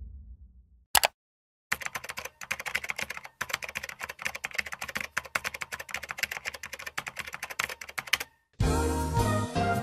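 Rapid typing on a computer keyboard: a fast, uneven run of key clicks lasting about six seconds, after the fading low tail of a boom and a single click. Music starts suddenly near the end.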